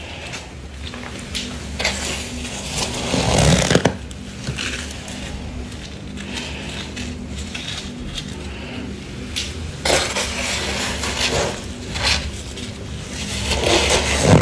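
Soft freezer frost crunching under a thin plastic-gloved hand as it presses and squeezes the frost, in several scrunching bursts. The loudest bursts come about three seconds in and near the end, over a steady low hum.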